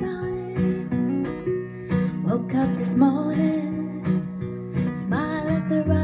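Acoustic guitar strummed with a woman singing along.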